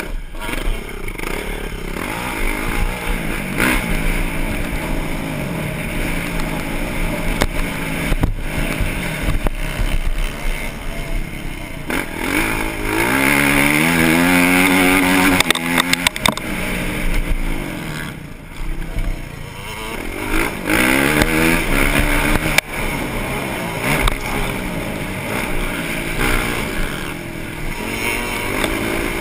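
Onboard sound of a motocross bike racing on a dirt track, its engine revving up through the gears. The pitch climbs in steps on a long straight about halfway through, eases off briefly, then climbs again.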